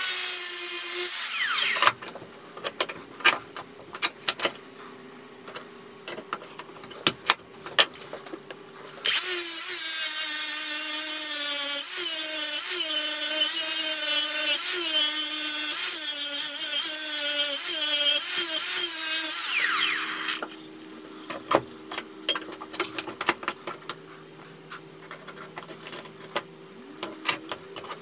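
Milwaukee cordless angle grinder with an abrasive disc grinding a steel lawnmower blade held in a vise. It runs for about a second and a half and winds down, then after several seconds of light clicks and taps it runs again for about eleven seconds, its pitch dipping again and again as the disc bears into the steel under load, and winds down about twenty seconds in. Light clicks and taps follow.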